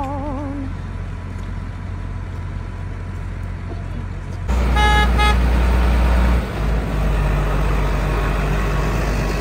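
Diesel tractor engines running steadily, much louder and closer from about halfway. There is a short horn toot at the very start that rises in pitch and then wavers, and a brief burst of horn beeps about five seconds in.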